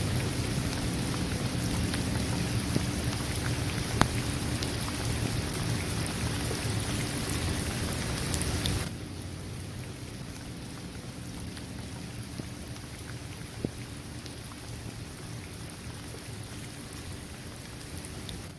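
Steady rain falling on a hard court, trees and grass, with a few sharper single drop hits. About halfway through, the rain abruptly becomes quieter and thinner in the low end.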